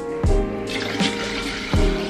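Background music with a steady beat. About a third of the way in, water starts pouring from a large plastic bottle into a metal moringa water jug, a steady splashing under the music.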